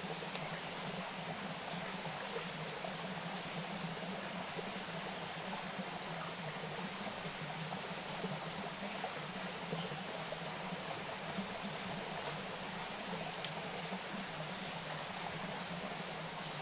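Steady forest ambience: a continuous high-pitched insect drone over an even hiss.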